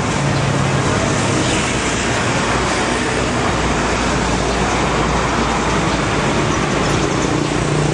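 Steady motor-vehicle noise, a continuous even rumble with a low hum underneath.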